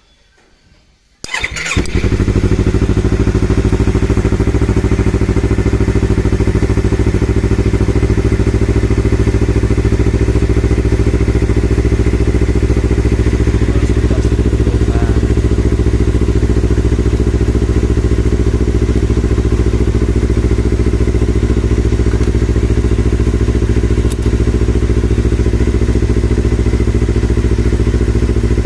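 Yamaha R25's 250 cc parallel-twin engine started about a second in, then idling steadily. It is running so the regulator/rectifier's charging voltage can be measured.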